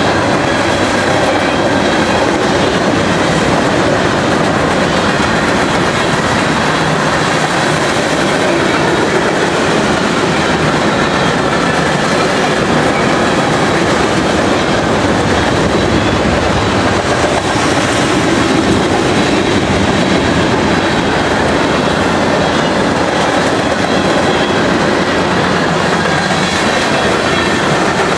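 Freight cars of a mixed freight train rolling steadily past, steel wheels running on the rails with a constant loud rumble.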